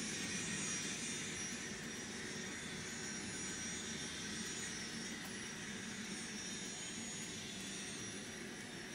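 Sound decoder in an N scale Union Pacific GTEL gas-turbine locomotive model, playing a steady turbine running sound through its small onboard speaker. It grows slightly quieter toward the end.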